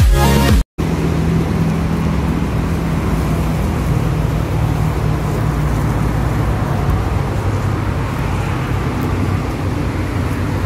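Dance music cuts off under a second in. A steady low rumble of outdoor background noise follows, with a faint steady hum.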